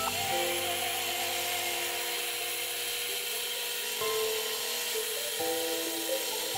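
Background music with slow sustained notes, over the steady hiss of a running belt grinder.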